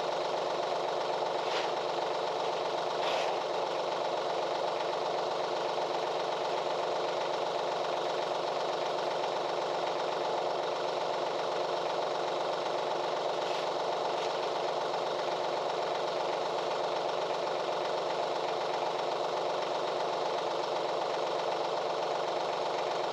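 Tractor engine idling steadily, an even hum that does not change.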